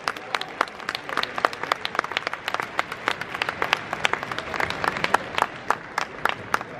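Scattered audience applause in an arena, with separate hand claps standing out, greeting a point just won.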